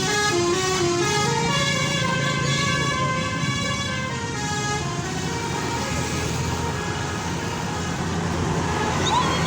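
Basuri musical bus horn playing a tune. Its stepped air-horn notes change quickly in the first couple of seconds and are then held, over the bus's engine running.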